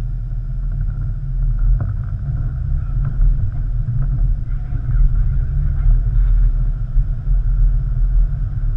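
Jeep driving along a dirt trail: a steady low rumble of engine and tyres, heard from a camera mounted on its hood.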